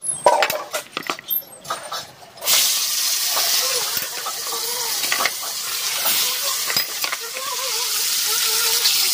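A few knocks and clatters, then, about two and a half seconds in, a steady loud sizzle starts: pieces of fish frying in hot oil in a wok.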